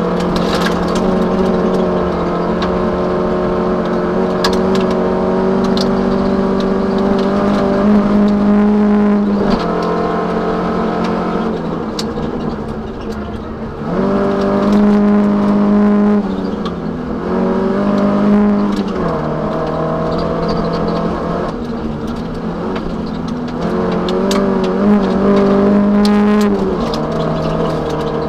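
Toyota Celica 1600 rally car's 1.6-litre four-cylinder engine heard from inside the cabin, held at high revs under hard throttle, then falling away and picking up again several times: about ten seconds in, around fourteen, and near the end. Scattered sharp ticks sound over it.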